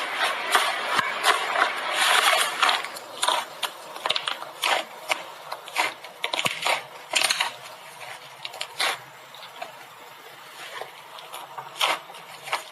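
Slime being squeezed and stretched by hand, with irregular crackling and popping clicks from trapped air bubbles. The crackles come thick at first and grow sparser in the second half.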